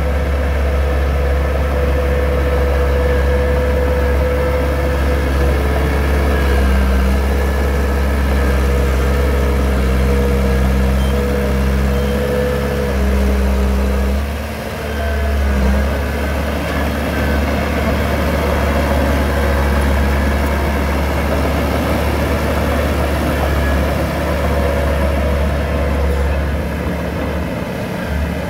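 Heavy construction machine engine running steadily with a deep rumble, easing briefly about halfway through before picking up again.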